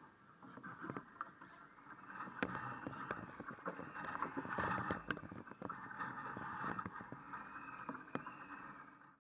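Lake water splashing and sloshing against the hull of a one-metre radio-controlled racing yacht, with scattered sharp knocks and clicks from the boat, heard close up from a camera mounted on its deck. The sound cuts off suddenly near the end.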